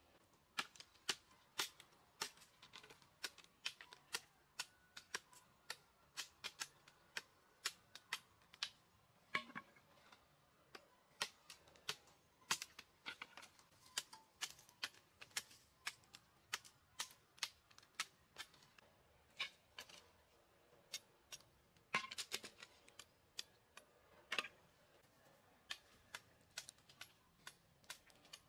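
Machete blade chopping and trimming a thin wooden pole held in the hand: sharp knocks at irregular intervals, one or two a second, with a quick flurry about three-quarters of the way through.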